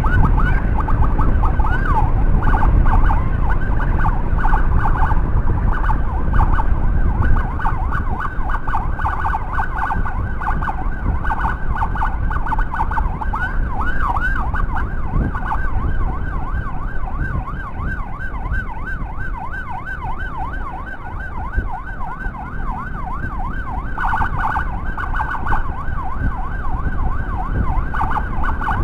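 Electronic emergency siren sounding continuously, switching between slower wails and a fast up-and-down yelp, over a steady low rumble of wind and engine noise from a moving motorcycle.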